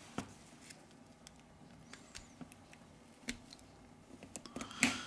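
Scattered light clicks and taps of small tools and phone parts being handled on a workbench, with a louder cluster of clicks near the end.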